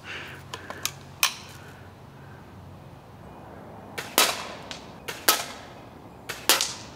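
Daisy lever-action BB gun firing at an aluminium drink can: a few light clicks in the first second or so, then three sharp cracks about a second apart as the gun fires and the BBs strike the can.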